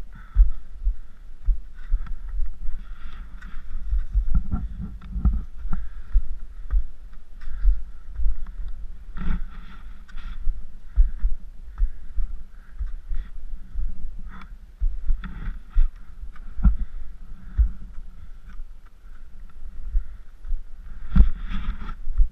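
Irregular low thumping and rumble of wind and movement on a body-worn action camera's microphone, mixed with scattered crunches and scrapes of skis and poles in snow.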